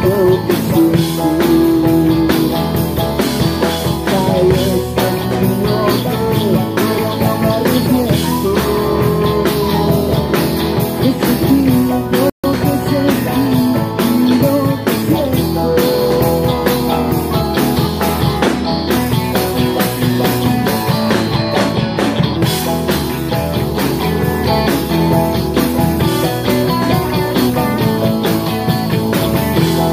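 A live rock band playing: electric guitars, electric bass and drum kit, with a singing voice. The sound drops out for an instant about twelve seconds in.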